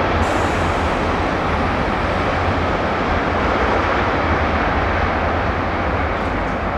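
A train running past at close range: a steady, loud rumble and rush of wheels on the rails, with a deep low hum underneath.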